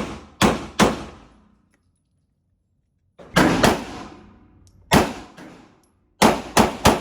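Gunshots at an indoor shooting range: sharp cracks fired in quick groups of two or three, each ringing briefly off the range walls, with sudden cuts to silence between them.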